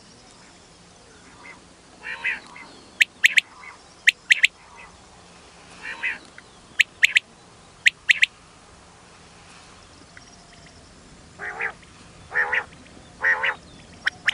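Common quail calling: short nasal calls broken up by pairs of sharp, high, quick notes, repeated several times.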